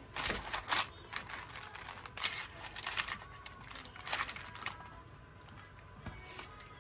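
Paper lining a glass baking dish crinkling and rustling as pieces of marinated raw chicken are pushed and rearranged on it by hand, in several short bursts over the first five seconds.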